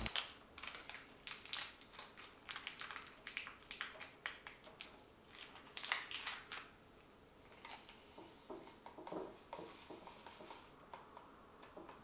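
Faint crinkling and crackling of a paper-foil instant coffee stick sachet being handled and torn open, in a run of small, irregular crackles.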